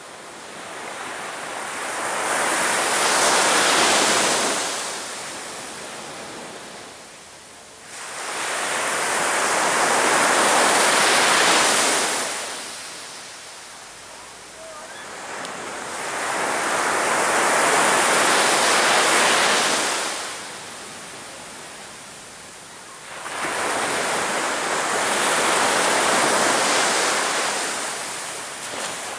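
Sea waves breaking on the beach: four rushes of surf, each building for a few seconds and then falling away, arriving about every seven or eight seconds.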